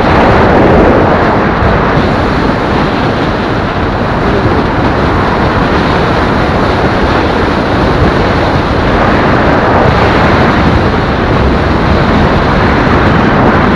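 Steady loud rush of wind over the helmet or body-mounted camera microphone on a motorcycle at highway speed, with the bike's engine and tyre noise blended underneath.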